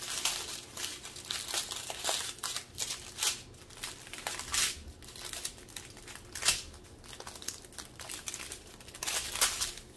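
Strip of small sealed plastic bags of diamond-painting drills being unfolded and handled, the plastic crinkling in irregular bursts.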